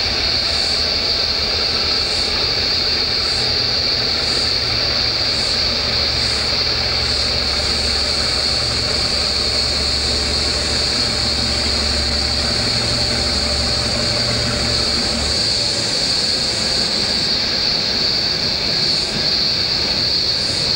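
Loud, steady, piercing drone of cicadas, with the low rumble of an approaching 48 class diesel-electric locomotive underneath. The rumble is strongest in the middle and drops away near the end.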